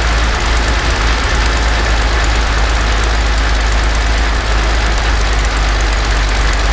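Freshly rebuilt Rolls-Royce Merlin XX V12 aero engine running steadily at low speed on its test stand, turning its propeller, exhausting into a large perforated silencer.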